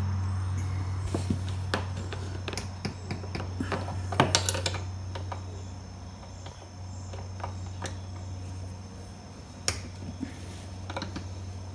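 Scattered metallic clicks and clinks of hand tools and bolts against the winch mounting hardware, with a cluster about four seconds in and a sharp one near the end, over a steady low hum.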